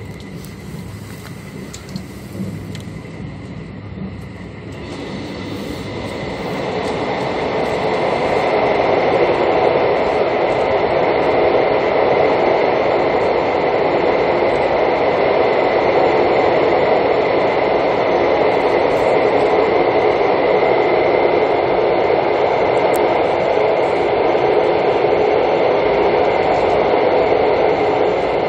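Running noise of a Mugunghwa-ho passenger train heard from inside the carriage, swelling about five seconds in into a loud, steady roar as the train runs into a tunnel. A faint steady high whine runs under it.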